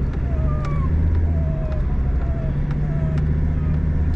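Steady engine and road drone inside a moving car, with a dog whining over it in short, high, falling whines several times.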